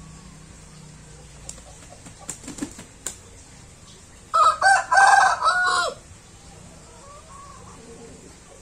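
A rooster crows once, a cock-a-doodle-doo of several linked notes with the last one held and then falling, about halfway through. A few short sharp clicks come a second or two before it.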